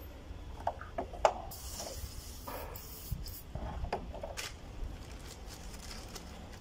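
AC Delco aerosol throttle-body and carburetor cleaner hissing in a spray of about a second onto a dirty throttle body, among light clicks and knocks of the metal part being handled.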